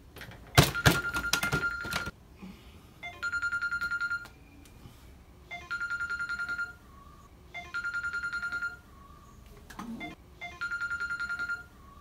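Smartphone on a pillow ringing with a trilling electronic tone, five bursts of about a second each, every two seconds or so. A few loud knocks just under a second in, the loudest sounds here.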